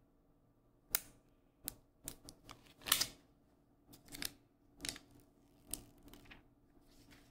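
Protective plastic film being peeled off the back of a smartphone: a string of short, irregular crackles and clicks, about a dozen over several seconds.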